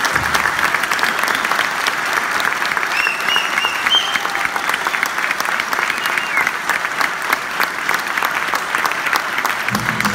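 Audience applauding steadily, dense clapping with a few brief high calls from the crowd about three seconds in. Just before the end, the folk band starts playing again with low pitched notes.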